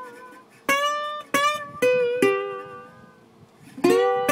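Background music: a guitar plucking single notes slowly, each note struck sharply and left to ring and die away, with a short pause before the last one.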